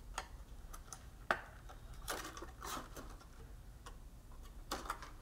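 Clear acetate plastic sheet crackling and clicking as it is folded and its tabs are worked into slits by hand: a few scattered sharp clicks and short crinkles.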